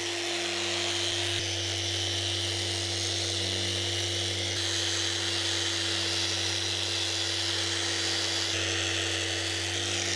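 Electric random orbital sander running steadily on a painted boat cabin top: an even motor whir with the hiss of the sanding pad on the paint, smoothing out a rough paint finish.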